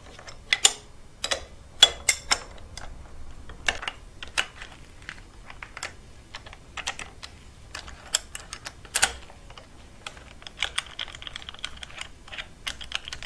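Hand tools clinking on metal: wrenches clicking against the cam lock tool's bolts as they are loosened, then the cam lock tool being lifted off the cam sprockets. The sharp clicks and clinks come at irregular intervals, with a short rasping scrape about ten and a half seconds in.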